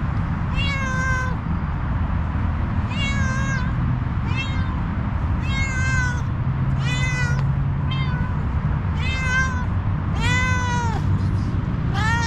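A tortoiseshell cat meowing repeatedly, about nine short meows each rising then falling in pitch, over a steady low background rumble.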